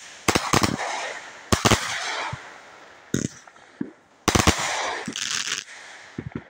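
200-gram consumer firework cakes firing: sharp reports in quick clusters, the heaviest volley about four seconds in followed by a second or so of crackling from the falling stars, then a few smaller pops near the end.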